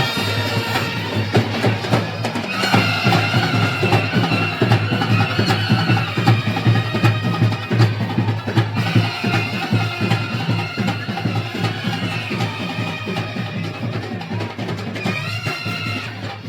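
Live festival band music: wind instruments holding a wavering melody over rapid, continuous drumming.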